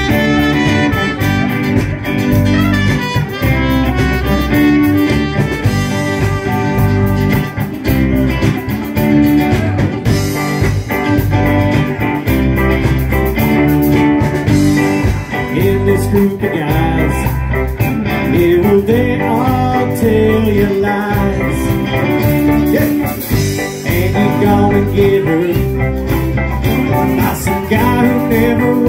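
Live band playing loudly and continuously: electric guitars, electric bass and an acoustic guitar over a drum kit.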